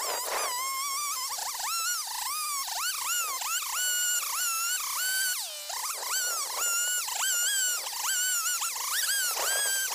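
Stihl MS 170 two-stroke chainsaw ripping along a log, its sound sped up so the engine comes out as a high buzzing whine. The pitch rises and dips over and over as the throttle and load change, with one deep dip about halfway.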